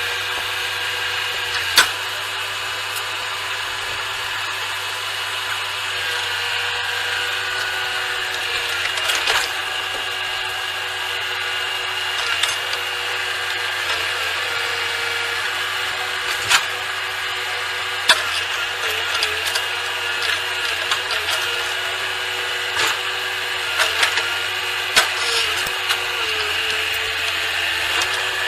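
A machine's motor whining steadily, with scattered sharp clicks and knocks.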